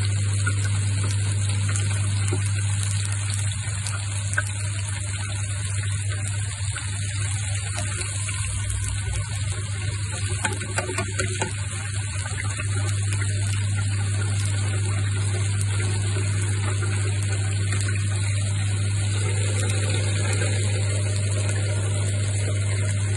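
Mushrooms deep-frying in a fryer basket, the hot oil bubbling and crackling with many small pops. A steady low hum runs underneath.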